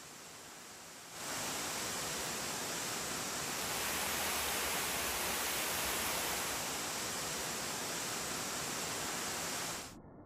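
Waterfall rushing: a steady, even noise of falling water that comes in loud about a second in and cuts off suddenly near the end, with only a faint hiss before it.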